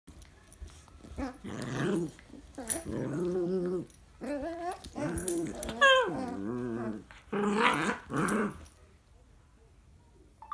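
Two dogs growling in a play fight, in several wavering bouts of a second or so, with a yelp that slides sharply down in pitch about six seconds in, the loudest sound. The noise stops a little before nine seconds in.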